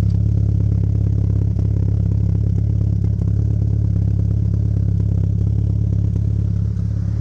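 Mitsubishi Lancer Evolution IV with a 415 bhp Evo VIII MR 4G63 turbocharged four-cylinder engine, idling steadily.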